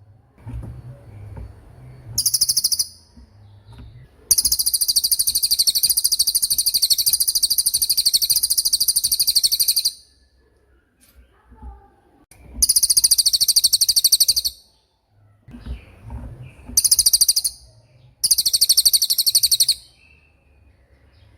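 A cililin bird singing its 'tembakan' song: very rapid, high-pitched rattling trills in bursts. There is a short burst about two seconds in, a long one of about six seconds from about four seconds in, then three shorter bursts with pauses between. A faint low rumble lies under the gaps.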